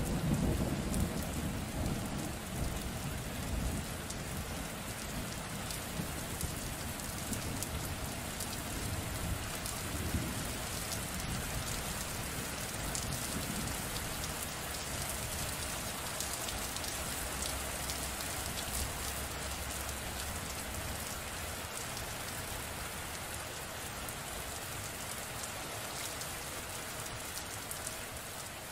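Steady rain falling, an even hiss with no pauses. A low thunder rumble fades away over the first few seconds.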